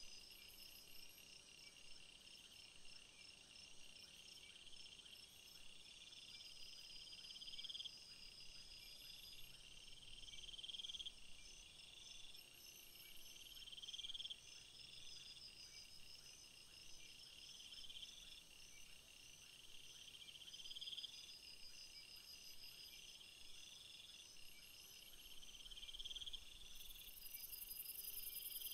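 Faint chorus of insects: several steady, high pulsing trills at once, over which one louder trill swells and cuts off about every two seconds. A very high hiss joins near the end.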